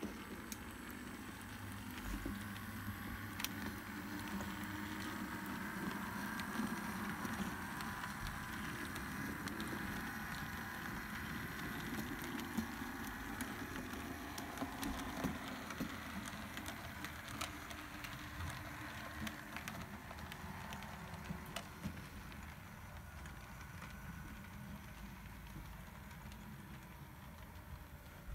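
A model diesel shunter locomotive running slowly, with a faint motor whirr and light clicking of its wheels and the wagons' wheels over the rail joints and points.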